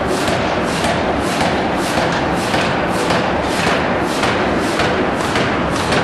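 D51 ring rolling machine rolling a red-hot forged ring: a steady, loud mechanical din with sharp thuds repeating about twice a second.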